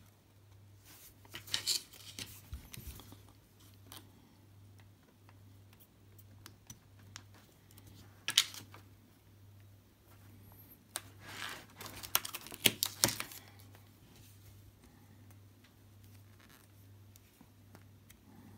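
Handling noise from a Samsung Galaxy A12 smartphone and its SIM tray being worked with the ejector pin: small scattered clicks and scrapes. A sharp scrape comes a little before halfway, and a cluster of louder clicks and scrapes comes about two-thirds of the way through.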